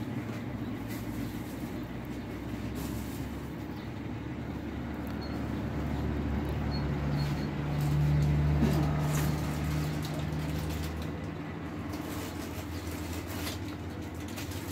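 A motor engine running with a steady low hum, growing louder for a few seconds around the middle and then easing off again.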